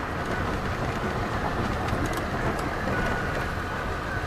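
Car driving on a rough unpaved road, heard from inside the cabin: a steady rumble of tyres and engine with rattling and scattered short clicks.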